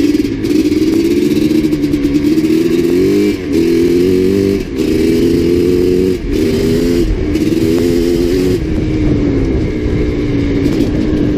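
Dirt bike engine pulling hard up through the gears: the pitch climbs, breaks off briefly and drops back at each of about five shifts, then holds at a steady cruise for the last few seconds.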